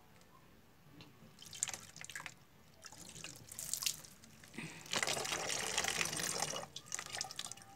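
Water poured slowly from a plastic bucket into a funnel in a plastic bottle: scattered drips and small splashes at first, then a steadier trickling stream from about five seconds in.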